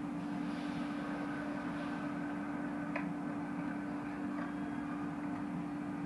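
Steady machine hum with a low drone, heard muffled from inside a car's cabin in an automatic car wash, with a faint click about three seconds in.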